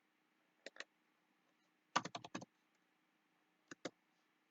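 Computer keyboard and mouse clicks: a pair of clicks under a second in, a quick run of keystrokes about two seconds in, and another pair near four seconds.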